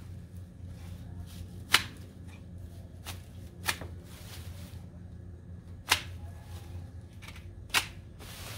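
Long-handled garden shears snipping through geranium stems: four sharp snips about two seconds apart.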